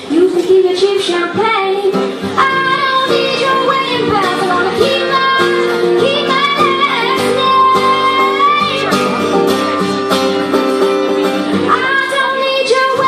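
Live performance of a teenage girl singing a song with guitar accompaniment, her voice holding a long note partway through.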